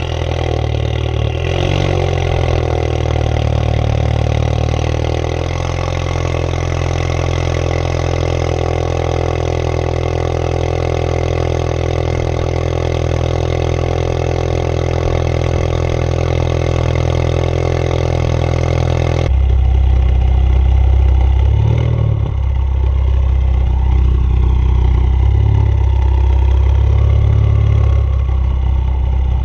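Mk3 Ford Focus ST's turbocharged four-cylinder through a straight-piped exhaust (mufflers and resonator deleted, catless downpipe), idling just after start-up, its idle settling down in the first few seconds. About two-thirds through the sound changes abruptly to a louder, deeper exhaust note with small rises in revs.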